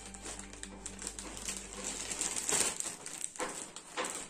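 Plastic snack packets crinkling and rustling as they are handled, with irregular crackles.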